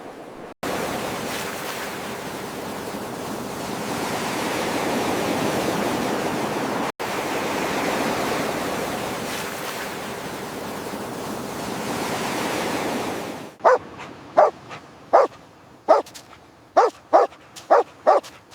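Surf washing steadily on a beach, then a dog barking repeatedly, about nine sharp barks in quick succession over the last five seconds.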